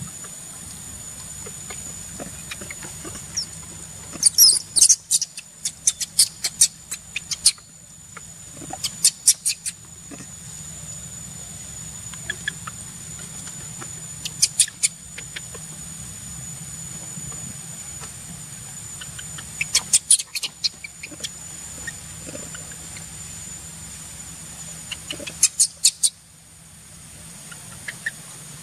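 Baby long-tailed macaque squealing in short, rapid, high-pitched bursts, several calls a second, in about half a dozen bouts separated by quiet stretches.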